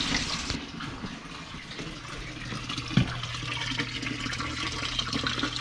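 Water pouring steadily from a tank's drain into a sump pit as the tank empties, with a single thump about three seconds in.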